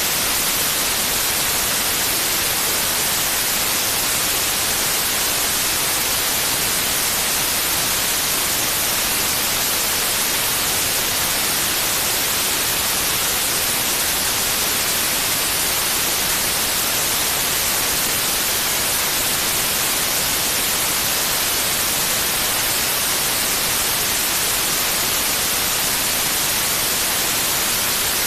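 Steady white noise: an even, unbroken hiss, brighter in the high frequencies, with no change throughout.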